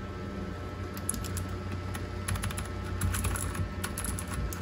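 Typing on a mechanical computer keyboard: an irregular run of quick key clicks starting about a second in.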